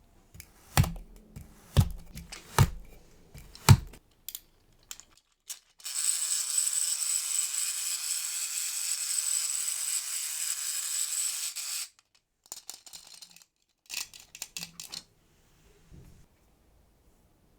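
Four sharp knocks of hard objects set down or struck, then a steady high hiss for about six seconds that stops abruptly, then light clicks and taps.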